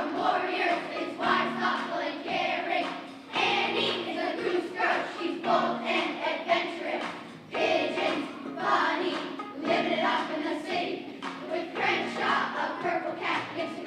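A choir of children singing a song together, in continuous sung phrases.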